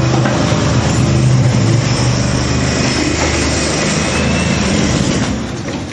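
An engine running steadily close by, a loud low hum with rattly noise over it, easing off near the end.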